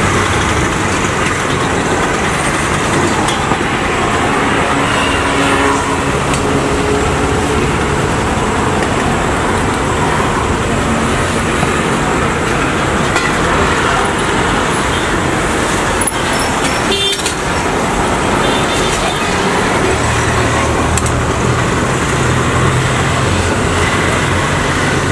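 Steady road traffic running close by, with horns sounding now and then. A lower engine drone rises near the end.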